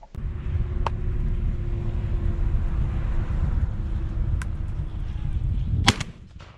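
Wind rumbling steadily on the microphone, then near the end a single sharp report as the Remington 1100 gas-operated semi-automatic shotgun fires and ejects its spent shell.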